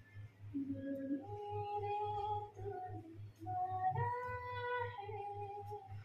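Background music: a Hindi song with a woman singing long held notes over a steady low beat.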